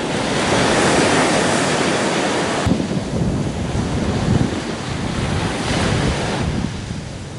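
Surf washing in over a sandy beach, with wind buffeting the microphone. The wash swells over the first couple of seconds, the sound changes abruptly a little over two and a half seconds in, and another wave swells near the end.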